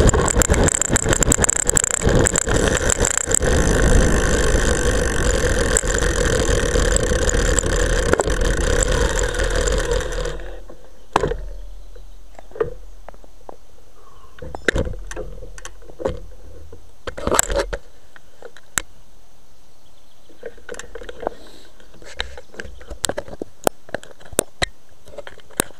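Rushing wind and tyre noise from a road bicycle on a fast descent, with a seatpost-mounted camera rattling constantly in its strap. About ten seconds in the noise drops sharply to a much quieter hiss, broken by scattered single clicks and knocks from the camera mount.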